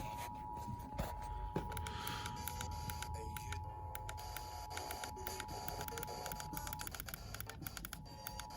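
Emergency Alert System attention signal from a radio broadcast: the steady two-note alert tone, with frequent clicks and crackle over it. The tone drops out for about a second near the end, then comes back.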